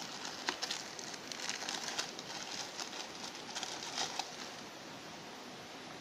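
Small plastic zip-lock bag crinkling and rustling in the hands as a coiled cable is taken out of it, with irregular sharp crackles until about four seconds in, then only a steady hiss.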